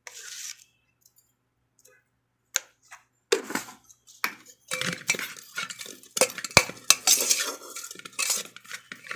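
Stainless-steel ladle clinking and scraping against a steel pot while stirring cooked rice. A few isolated clinks come first, then a dense run of scrapes and knocks from about three seconds in.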